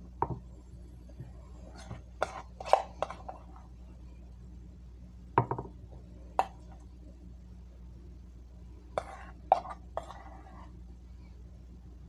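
Kitchenware clinks and knocks: a metal mixing bowl and utensil tapping against a metal muffin tin while filling is scooped into the cups, in a few short clusters with quiet gaps between, over a faint steady hum.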